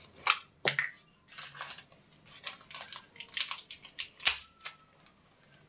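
Irregular run of sharp clicks, taps and short rustling scrapes from kitchen items being handled, with the loudest knock a little past four seconds in.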